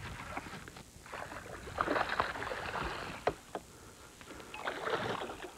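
Hooked largemouth bass thrashing and splashing at the water's surface as it is played to the boat. There is a burst of splashing about two seconds in and another near the end, with two sharp knocks in between.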